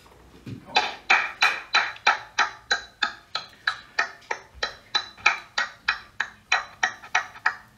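One person clapping steadily, about three sharp claps a second, beginning about a second in and stopping near the end.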